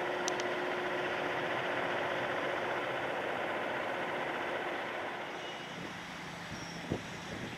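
Jet aircraft engine noise: a steady rushing noise with a low hum in it, which falls away to a quieter low rumble about five seconds in. A single thump comes near the end.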